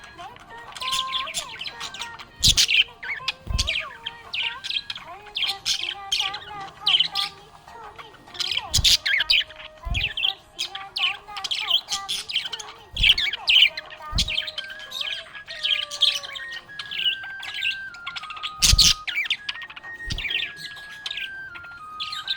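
Budgerigar chirping and warbling in a rapid, continuous run of short high chirps, with about eight sharp knocks scattered through it.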